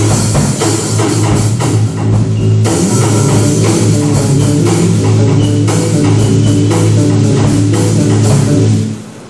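Live band playing loud rock-style music: drum kit and guitar over a held low note. The music cuts off near the end.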